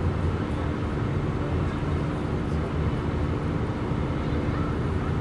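Steady cabin noise of an Airbus A319 airliner in flight, heard inside the cabin by the wing: a low engine and airflow rumble with a constant hum on one pitch.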